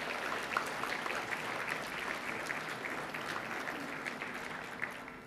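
Audience applause: many people clapping together, starting at once and dying away near the end.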